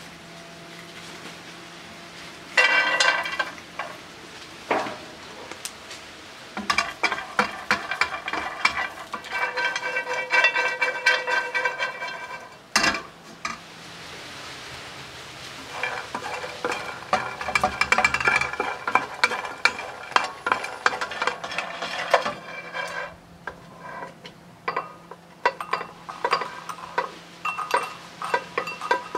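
Blanched almonds clattering in a dry metal frying pan as they are stirred and tossed while roasting, in several long bursts of rapid clicking, with the pan ringing. Near the end come scattered clinks as the roasted almonds are tipped into a glass bowl.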